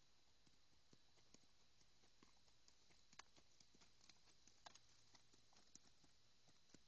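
Faint hoofbeats of a ridden Quarter Horse on soft dirt, as scattered soft clicks that grow loudest about halfway through as the horse passes close by.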